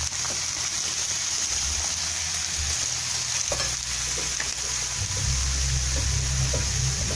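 Shredded bamboo-shoot filling frying in oil in a wok: a steady sizzle with a few faint taps. A low rumble comes in about five seconds in.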